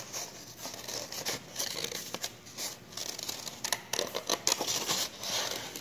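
Scissors cutting through a folded sheet of paper, in a run of short, irregular snips.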